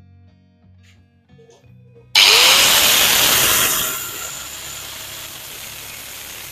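Soft guitar music, then about two seconds in a Doliz BA 770-C angle grinder is switched on: a sudden loud start with a rising whine as the motor spins up, then steady running. Near the end the cutting disc begins biting into 3 mm steel plate.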